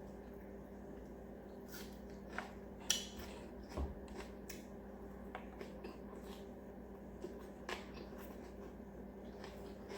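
Quiet eating sounds: scattered small clicks and smacks from handling and chewing food, the sharpest about three seconds in, over a steady low hum.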